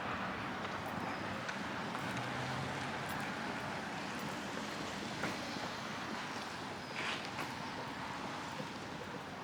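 Footsteps walking on pavement over a steady outdoor rush, with a few sharper taps about five and seven seconds in.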